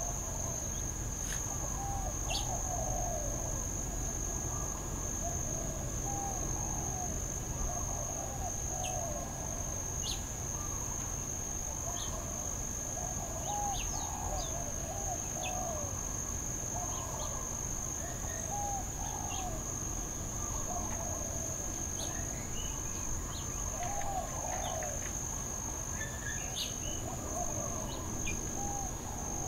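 Steady high-pitched insect drone, with short arching calls every few seconds and scattered brief chirps over it.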